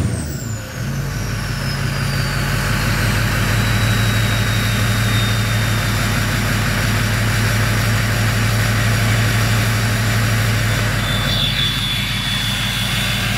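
Ford 6.0L Power Stroke turbo-diesel idling through a 5-inch MBRP turbo-back exhaust just after a rev. The turbo's whistle falls steadily in pitch over the first several seconds as the turbo spools down. A steady high whistle sounds again near the end.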